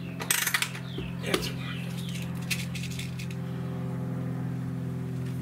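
Diana 48 spring-piston air rifle being cocked with its side lever: a cluster of sharp metallic clicks a moment in, another single click about a second later, and a run of lighter clicks in the middle. Under them are a steady low hum and bird chirps.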